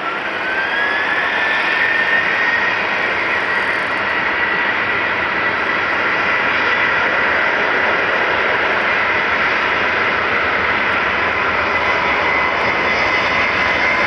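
Jet airliner's engines spooling up: a whine rises in pitch over the first two seconds, then holds steady above an even engine noise.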